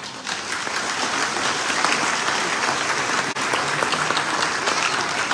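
A large audience applauding, breaking out right after a children's choir ends its song.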